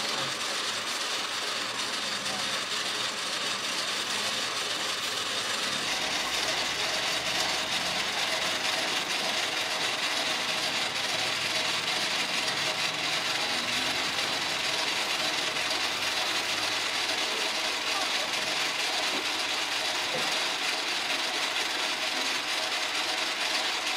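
Steady, unbroken background noise of a busy street market, with indistinct voices of people around the stall.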